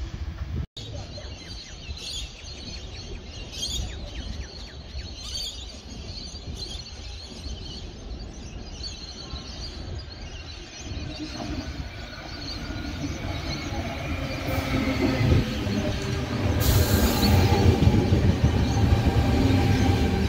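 Sydney Trains Waratah double-deck electric train approaching and passing close by, its low rumble building over the last several seconds. A short burst of high-pitched noise comes about 17 seconds in as the carriages pass.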